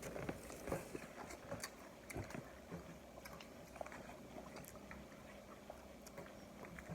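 Faint sounds of people eating: chewing, with scattered small clicks and taps.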